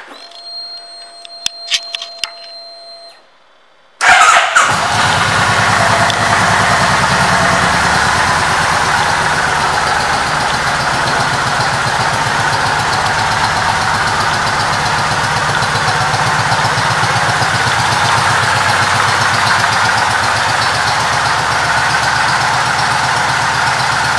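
A 2003 Kawasaki Vulcan 1600 Classic's V-twin is started. A few clicks and a faint steady whine come first, then about four seconds in the engine cranks and fires with a loud burst and settles into a steady, evenly pulsing idle.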